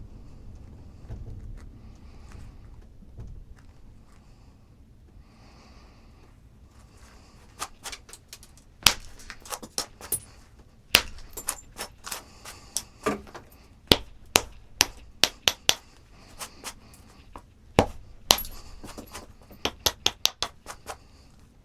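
Stone being flintknapped. After a few quiet seconds of faint handling, a run of sharp, irregular clicks and snaps starts about seven or eight seconds in as flakes are driven off the edge of the stone.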